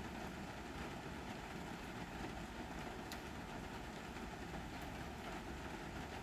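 Steady rainfall, an even hiss with a low rumble underneath, broken by a few sharp drip ticks, the clearest about three seconds in.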